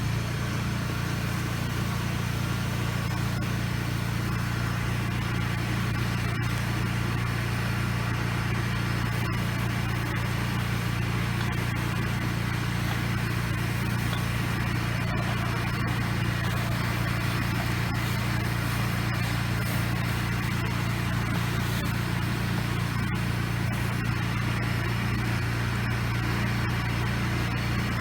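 Engine of a pressure-washing rig running steadily at a constant speed, a low drone with a steady hiss over it.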